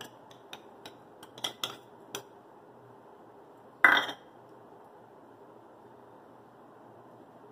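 A steel measuring cup and spoon knock against a glass mixing bowl as hung curd is scraped out: a run of light clicks over the first two seconds, then one louder clink about four seconds in.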